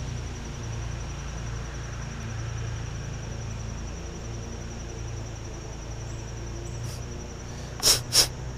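Steady outdoor background with a low hum and a thin, steady high-pitched whine, broken by two short rustling knocks near the end.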